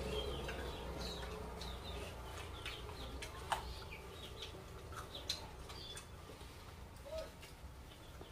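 Small birds chirping now and then over a steady low hum, with a few sharp clicks, the loudest about three and a half and five seconds in.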